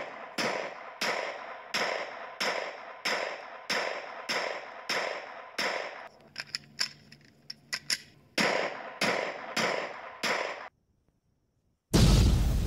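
A regular series of sharp claps or strikes, about three every two seconds, each ringing briefly, with a stretch of faster, fainter clicking in the middle. It stops dead about two seconds before the end, and a loud rushing noise begins near the end.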